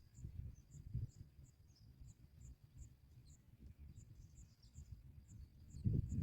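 Insect chirping: short, thin, high pulses about two or three a second over a faint steady high whine, with a low rumble underneath that grows louder near the end.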